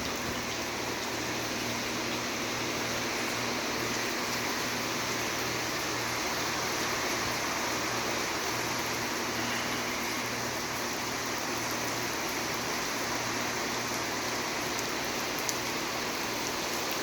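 Rain falling steadily, an even hiss that holds without let-up.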